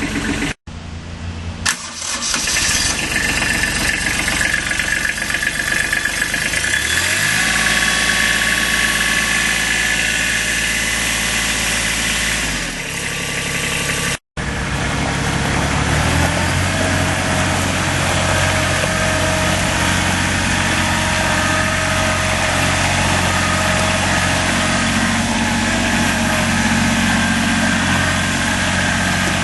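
Kubota B21 tractor-loader-backhoe's diesel engine running; it is revved up about seven seconds in and drops back about five seconds later. After a brief cut about halfway through, it runs steadily.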